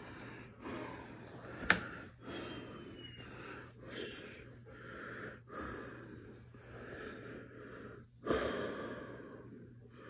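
Repeated breathing and snuffling during rough play with a dog, each breath about half a second to a second long, with a sharp click about two seconds in and a louder, gasp-like breath about eight seconds in.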